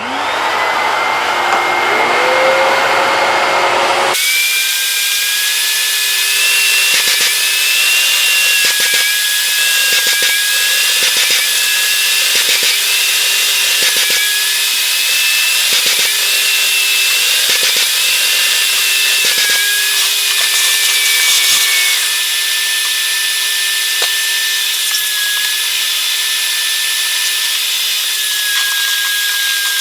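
Kärcher wet-and-dry vacuum cleaner switched on, its motor whine rising as it spins up, then running loud and steady. The sound changes abruptly about four seconds in, and after that the high whine dips and recovers again and again.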